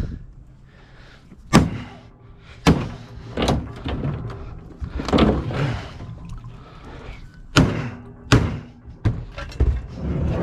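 A small sledgehammer striking a refrigerator, about eight heavy blows at uneven intervals, to knock its doors loose.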